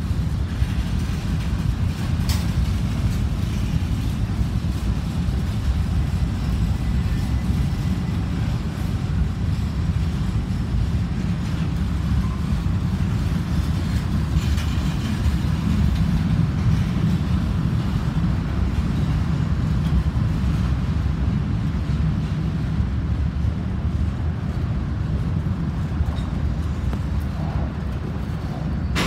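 Freight cars (covered hoppers and flatcars) rolling past: a steady low rumble of steel wheels on rail, with a couple of sharp clicks.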